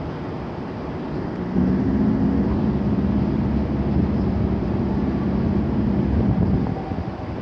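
Low, steady rumble of a large cruise ship manoeuvring under its engines and thrusters, with a faint hum in it. It grows louder about a second and a half in and eases off near the end.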